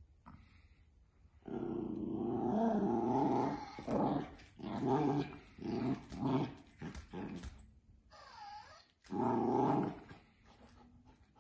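Scottish terrier puppy play-growling as it mauls a toy mouse: one long growl about a second and a half in, then a string of short growls, and another growl near the end.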